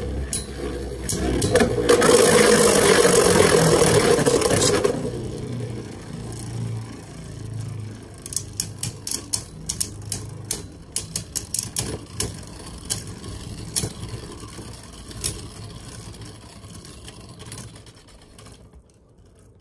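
Two Beyblade spinning tops, one of them Vanish Fafnir, whirring and grinding against each other and the plastic stadium floor, loudest in the first few seconds. Then a long run of sharp clacks as the spinning tops strike each other again and again, growing fainter near the end.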